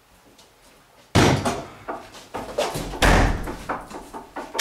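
A door slamming: a sudden heavy bang a little over a second in, smaller knocks after it, and a second heavy bang about two seconds later.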